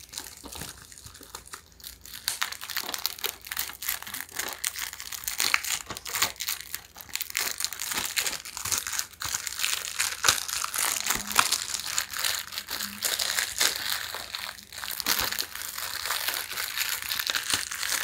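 Plastic shrink wrap being peeled off a DVD case and crumpled by hand, giving a dense, irregular crinkling and crackling.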